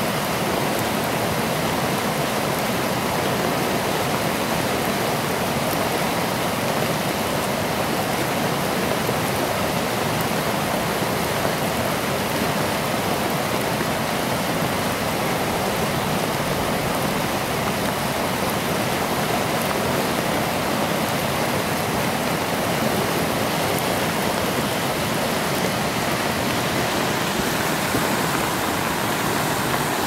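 Flood-swollen river rushing past as a fast muddy torrent: a steady, dense noise of rushing water that does not let up.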